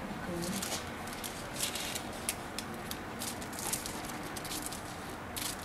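Scissors cutting into a paper dress pattern: an irregular run of short, crisp snips and paper crackles.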